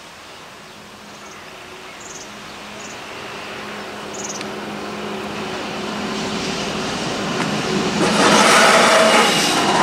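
Two coupled GTW 2/6 diesel railcars approaching: a steady engine hum grows louder, then the train noise rises sharply about eight seconds in as it reaches the crossing.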